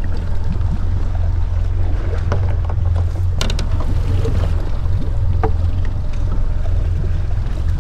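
Outboard motor running steadily at low speed as a low drone, with water rushing along the hull. A few sharp knocks sound partway through as a deck hatch and landing net are handled.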